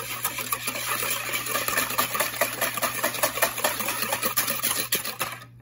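Wire balloon whisk beating a thin liquid batter of egg white, milk, oil and sugar in a plastic mixing bowl: a fast, steady clatter of the wires striking the bowl and sloshing through the liquid, dissolving the sugar. It stops abruptly near the end.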